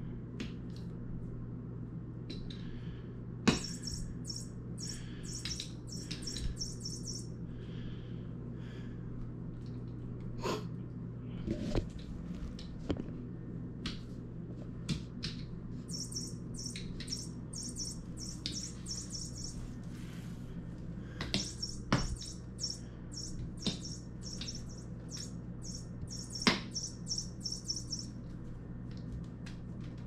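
Electronic tweeting bird toy on a wand chirping in spells of a few seconds at a time, with scattered knocks and taps as a cat bats at it and it is dragged across the floor.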